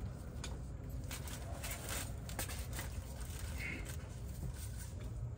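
Scattered light clicks and taps of tools and brake parts being handled, over a steady low rumble.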